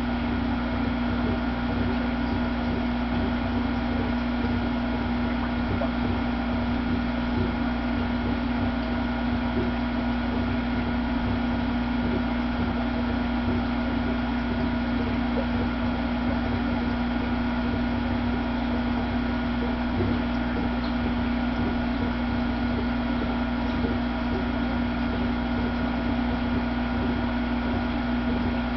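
Steady low electric hum over a faint even hiss, from aquarium equipment running.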